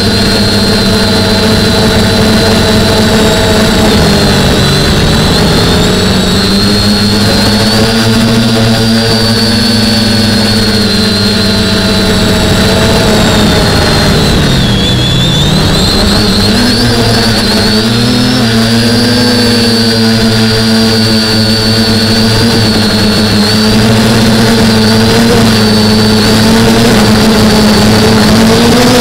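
DJI F450 quadcopter's four E300 920kV brushless motors and 9.4-inch propellers whining in flight, picked up close by the onboard camera. The pitch dips slightly about four seconds in and drops further around the middle before climbing back.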